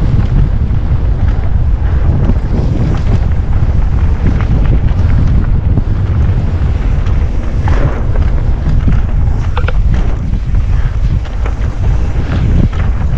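Wind buffeting an action camera's microphone during a fast mountain-bike descent: a loud, steady low rumble. A few short clatters come in the second half.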